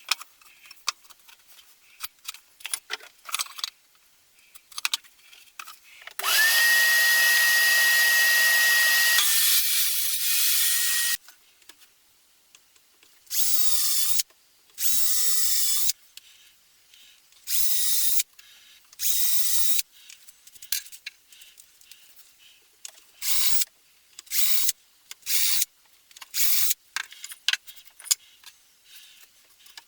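Power drill running in short bursts: one long run of about five seconds that spins up quickly at the start, followed by about eight runs of around a second each. Clicks and knocks of handling come between the runs.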